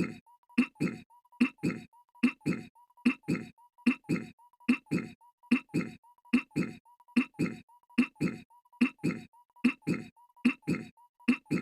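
Goofy's cartoon voice clearing his throat: a short throaty 'ahem' looped over and over in quick, even succession, more than once a second.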